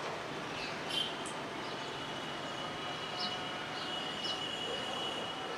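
Steady outdoor background noise with short, high bird chirps scattered through it and a faint, thin, steady high whine starting about a second and a half in.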